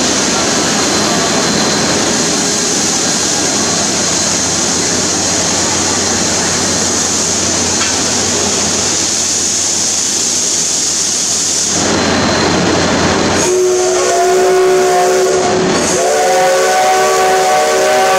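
CT273 steam locomotive blowing off a loud, steady hiss of steam for about twelve seconds, then sounding two chime-whistle blasts of several notes at once, the second longer: the departure signal before it pulls out.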